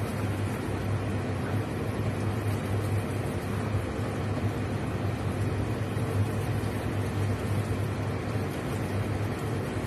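A steady low hum with an even rushing noise, as from a small motor or fan running, under a thick sauce simmering and being stirred with a wooden spatula in a nonstick pan.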